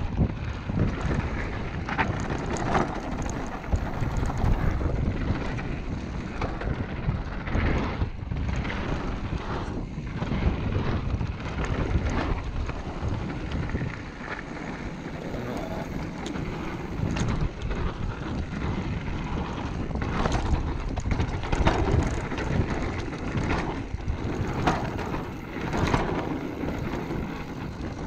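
Wind buffeting the microphone over the rumble of a Specialized Kenevo mountain bike's tyres rolling down a dirt and gravel trail, with frequent knocks and rattles as the bike goes over rocks and roots.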